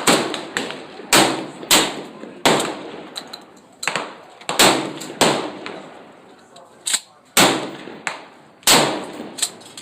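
Rapid, irregular gunfire on a shooting range's firing line, about ten shots in under ten seconds, each followed by a short echoing decay. Some shots are louder and some fainter, as from several guns firing at once.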